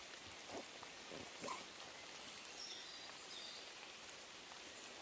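Light drizzle starting to fall, a soft steady hiss, with a couple of brief rustles in the first second and a half and a few faint high chirps about three seconds in.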